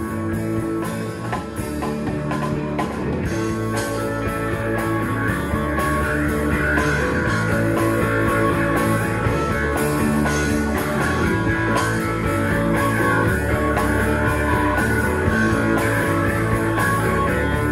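Live rock band playing an instrumental passage of a song: guitar, bass and drums with keyboard, no vocals.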